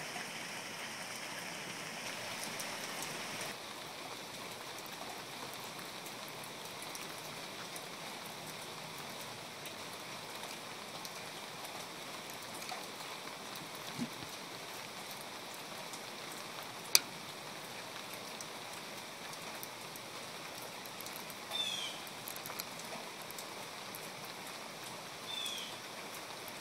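Steady rain falling on a garden: an even hiss of drops. A single sharp click comes about two-thirds of the way through, and two short, high, falling chirps come near the end.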